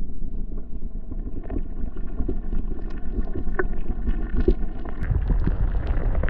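Muffled underwater sound of river water and handling through a submerged camera: a low rumble with scattered small knocks and clicks, turning rougher and more splashy about five seconds in.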